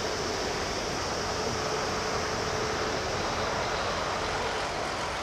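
Boeing 777-200ER's twin jet engines at takeoff thrust as the airliner climbs away: a steady rush of jet noise with a faint steady hum in it.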